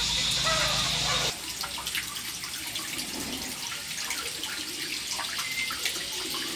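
Water running and splashing, an even rushing with small scattered clicks, setting in abruptly about a second in after a brief hum and a short pitched call.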